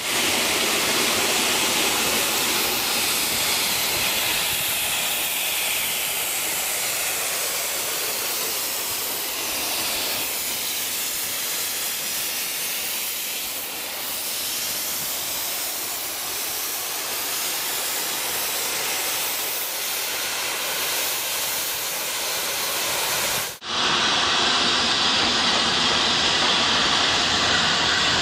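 Steam locomotive letting off steam: a loud, steady hiss. Near the end it cuts off suddenly to the steady rushing noise of a train running.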